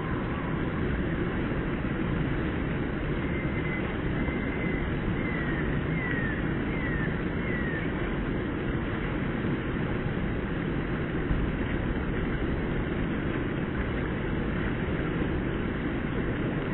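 Steady outdoor rushing noise, even in level throughout, with a run of faint, short, falling high chirps a few seconds in.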